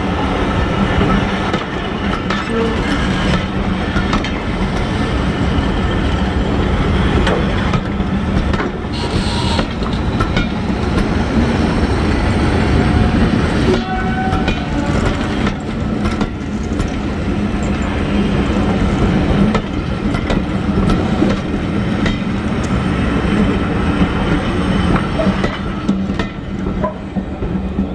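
Passenger train's coaches rolling past at speed, a steady rumble with the wheels clattering over the rail joints.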